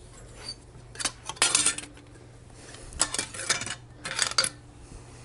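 Metal clinking and scraping in three short clusters as a piston ring compressor is handled at the base of a Harley-Davidson Evo cylinder being eased down over the piston rings.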